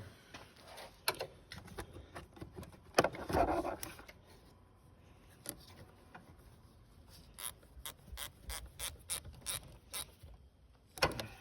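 Hand tools working on a car battery terminal: scattered metal clicks and clinks, a sharp knock about three seconds in, then a run of quick ratchet-like clicks, about three or four a second, near the end as the cable is reconnected.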